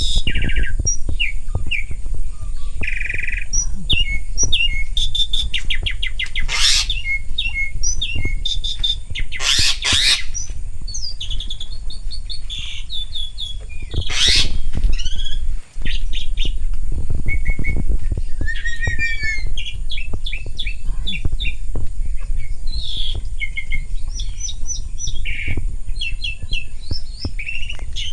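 A pair of jalak starlings calling: a busy run of short chirps, whistles and quick trills, broken by a few loud, harsh squawks. A steady low rumble runs underneath.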